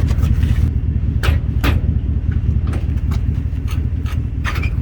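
A vehicle engine running steadily in a low rumble, with a few short sharp knocks over it, about a second in, shortly after, and near the end.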